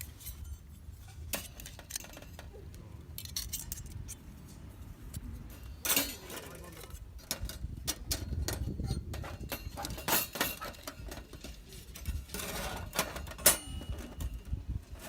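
Small metal pieces clinking and clattering as they are handled, in irregular knocks with a brief ring after some of them.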